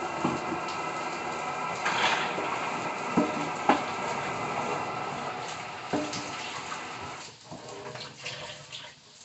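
Kitchen tap running in a steady hiss, with a few clinks of dishes, until it is shut off about seven seconds in.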